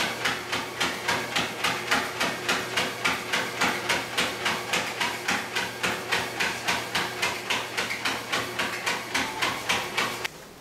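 Motorized treadmill running with a low steady hum while a dog trots on the belt, its paws tapping in an even rhythm of about three steps a second. The sound cuts off abruptly shortly before the end.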